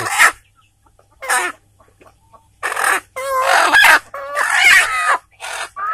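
Village chickens squawking and clucking in about half a dozen loud bursts of calls with short quiet gaps between them.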